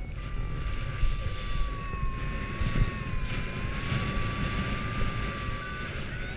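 Wind rushing over the camera microphone in paraglider flight. A single long high tone holds over it, dips slightly in the middle and stops about six seconds in.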